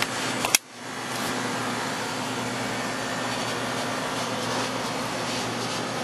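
TempStar packaged air-conditioning unit running: a steady rush from its outdoor fan over a low hum from the compressor. A sharp click about half a second in, after which the sound drops briefly and comes back.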